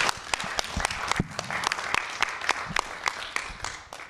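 Audience applauding: many hands clapping irregularly, thinning out near the end.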